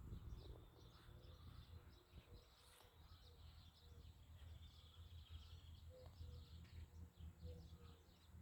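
Near silence outdoors: faint, scattered bird chirps over a low rumble of wind or background noise.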